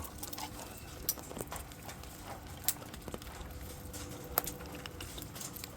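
A parrot cracking a pistachio shell in its beak: scattered short, sharp clicks and cracks, over a faint steady hum.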